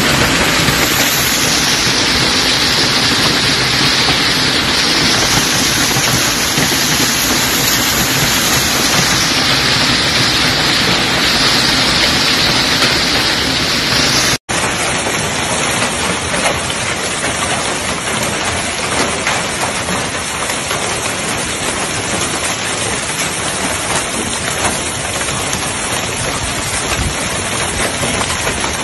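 Hailstorm: hailstones pelting the ground in a dense, steady hiss of impacts. About halfway through it cuts out for an instant and comes back as a finer patter.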